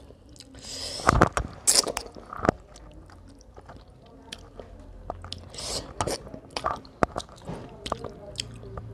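Mouth sounds of a person eating rice and fish curry: chewing with wet smacks and clicks, louder about one to two seconds in.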